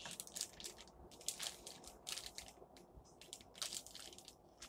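Clear plastic wrapping crinkling and crackling in irregular sharp crackles as it is handled and cut open.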